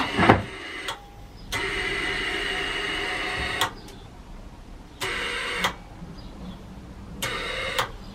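Suzuki GN125's electric starter motor cranking its single-cylinder engine in repeated presses: one of about two seconds, then two brief tries, with pauses between. The engine turns over but does not fire: a no-start.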